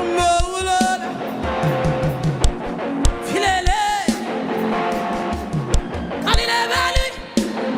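Worship music: sustained instruments with bass and guitar over a steady beat, with a singer's brief sung phrases three times.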